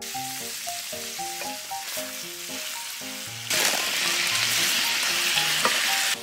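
Smoked duck slices sizzling in a hot grill pan. The sizzle grows much louder about three and a half seconds in, as chives and onion go into the pan.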